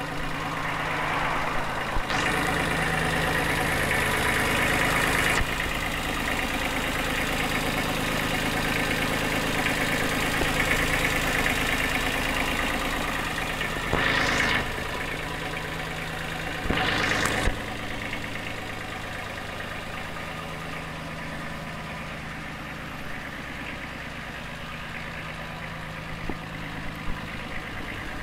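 Kubota B2350 compact tractor's three-cylinder diesel engine idling steadily, with a few brief rushes of hiss over it: a longer one about two seconds in, then two short ones around fourteen and seventeen seconds.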